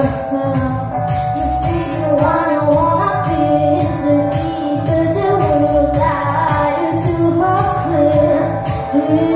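A young girl singing a pop song into a microphone over backing music with a steady beat and bass.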